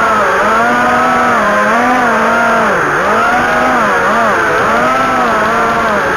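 Racing quadcopter's brushless motors and propellers whining, the pitch dipping and climbing again every second or so as the throttle is worked.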